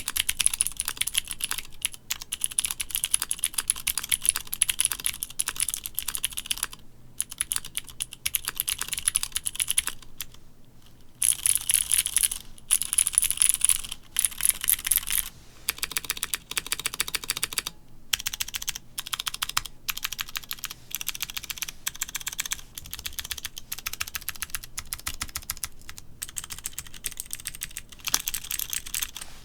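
Fast, continuous typing on a mechanical keyboard with Cherry MX switches mounted on an aluminium plate: a dense run of key clicks and clacks, broken by a few short pauses.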